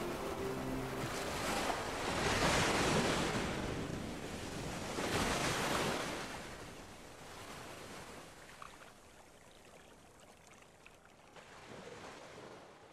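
Sea waves washing onto a shore: the surf swells and draws back twice, then fades away gradually. The last chord of a piece of music dies away in the first second.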